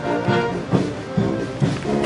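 Military brass band playing a march, with a steady drum beat about twice a second under the brass.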